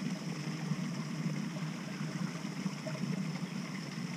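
Steady rush of hot spring water flowing in a stone pool, even and unbroken.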